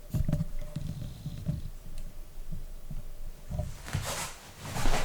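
Irregular low, dull thumps and rumbles of the camera being handled and repositioned, with a short hiss about four seconds in.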